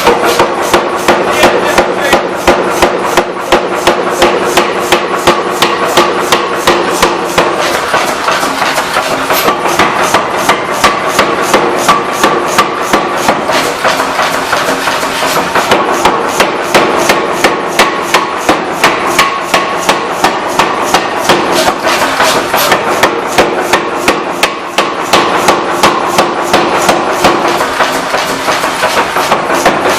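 Rhythmic hammer blows on the steel tip of a hydraulic breaker chisel being forged in repair, about three strikes a second, steady and unbroken, over a constant ringing hum.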